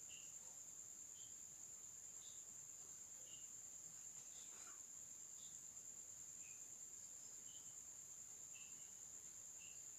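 Faint, steady high-pitched trill of crickets, with soft short ticks about once a second.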